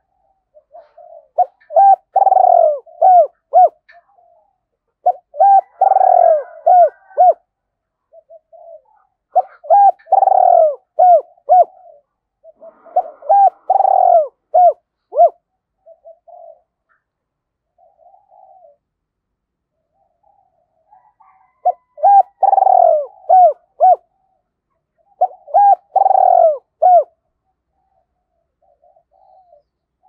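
Spotted dove cooing: six phrases, each a loud drawn-out falling coo followed by a few short clipped coos, with pauses between and a longer lull in the middle.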